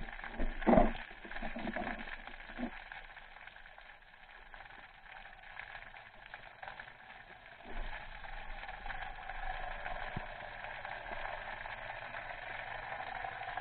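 Underwater ambience during a spearfishing dive: a steady hiss, a few knocks in the first three seconds (the loudest about a second in), and a low hum that comes in just past halfway.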